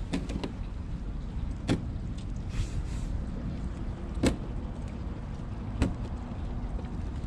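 Steady low wash of water and wind around a kayak hull, broken by a handful of sharp clicks and knocks, the loudest about four seconds in.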